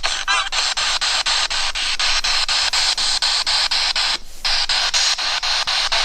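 Spirit box sweeping through radio frequencies: a loud hiss of static broken by about five brief dropouts a second as it steps from station to station. There is a short snatch of radio sound near the start and a brief break in the static about four seconds in.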